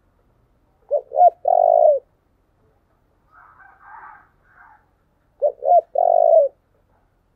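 Spotted dove cooing: two phrases about four and a half seconds apart, each two short coos followed by a longer, slightly falling coo.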